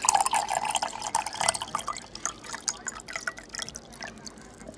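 Water dripping and splashing in a quick, irregular run of small splashes that thins out and fades over the last second or two.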